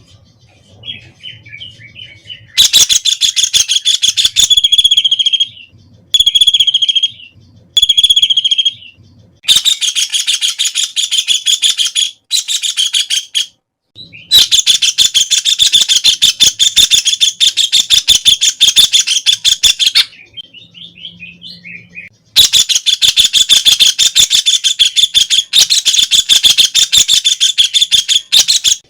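White-throated kingfisher giving its loud, rapid rattling trill in repeated long bouts of a few seconds each, with brief pauses between them. Softer chattering calls fill a pause near the start and another about two-thirds of the way in.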